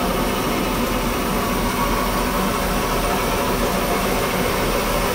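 Two-cylinder steam engine of a steam yacht running steadily, an even mechanical churn under a continuous hiss.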